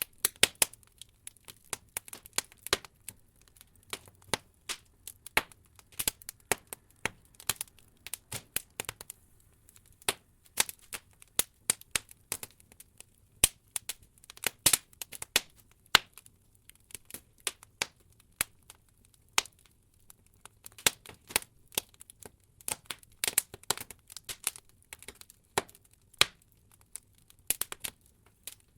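Wood logs burning in an open fireplace, crackling with irregular sharp pops and snaps, some in quick clusters, over a faint low hum.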